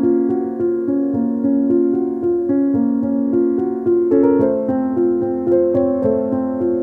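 Calm background keyboard music, piano-like notes moving at a gentle even pace, with a change of chord about four seconds in.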